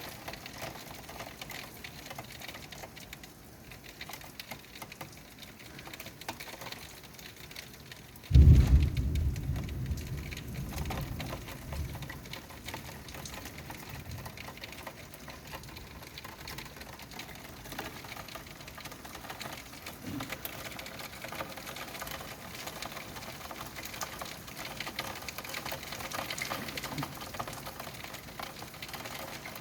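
Rain falling steadily in a thunderstorm. About eight seconds in, a sudden loud clap of thunder breaks out and rumbles away over the next few seconds.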